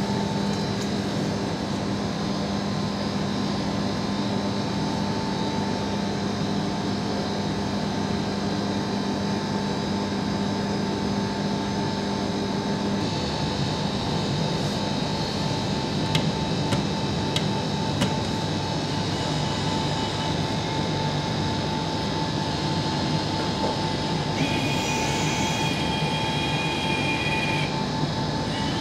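Hot-food vending machine running its heating cycle: a steady mechanical hum and whir, its tone shifting about thirteen seconds in. A higher whine joins for a few seconds near the end.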